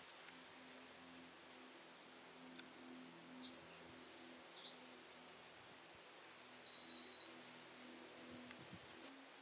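A small songbird singing a varied phrase of high, rapid trills and quick slurred notes, starting about two seconds in and stopping near seven seconds, over a faint low hum that comes in short repeated pulses.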